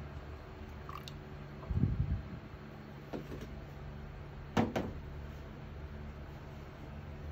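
Flannel coffee filter on its wire frame being lifted off a glass mug and set down on a plastic holder: a low bump about two seconds in, then two quick light knocks just before five seconds in, over a steady low hum.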